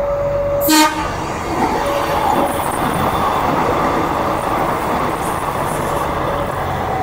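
KCJB feeder train sounding a short horn toot under a second in, then passing close by with a steady rolling noise.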